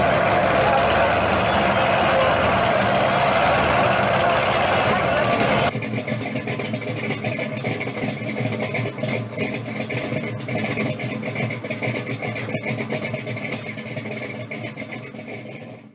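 Pontiac GTO's V8 exhaust running loud and steady. About six seconds in, it cuts off abruptly to a quieter, different sound that fades away near the end.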